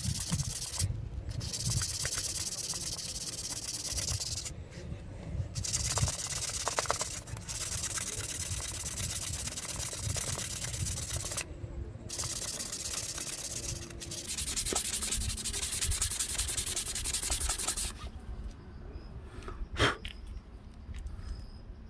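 Abrasive rubbing, like sandpaper worked steadily against a part, in long stretches broken by a few short pauses, stopping about four seconds before the end. A sharp click follows a little later.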